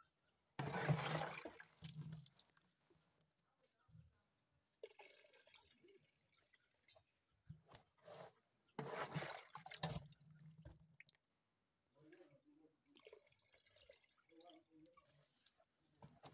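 Water splashing in a black plastic tub of catfish, in two loud splashy bursts about a second in and about nine seconds in, with fainter dripping and sloshing between.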